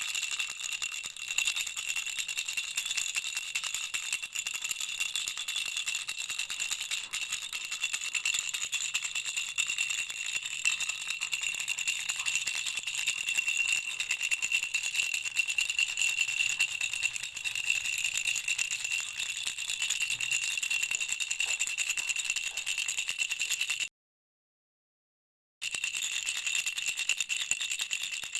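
Baby rattle shaken continuously: a steady, dense jingling with bright bell-like ringing tones. It cuts to dead silence for about two seconds near the end, then resumes.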